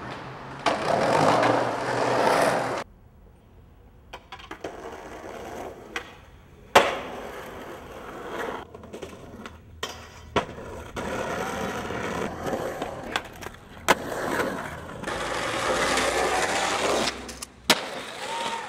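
Skateboards rolling on concrete, with sharp clacks of boards hitting and landing tricks several times. The sound changes abruptly where short clips are cut one after another.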